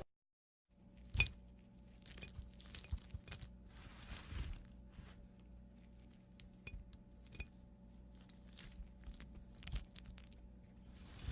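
Plates being handled: faint scattered clinks and light scrapes, with one sharper clink about a second in, over a steady low hum.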